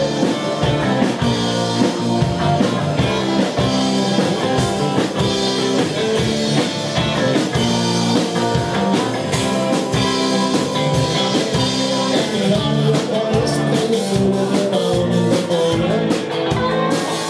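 Live rock band playing: electric guitars and a drum kit with a steady beat, and a singer on vocals.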